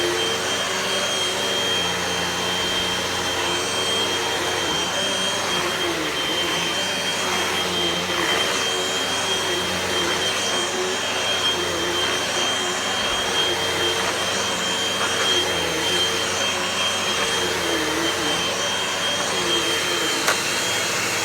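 Hoover Rewind upright vacuum cleaner running steadily, a loud motor rush with a constant high whine.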